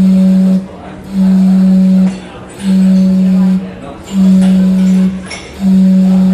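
Gastown steam clock's steam whistle sounding the hour: one low note blown in five even blasts about a second long, roughly every second and a half, each with a hiss of steam.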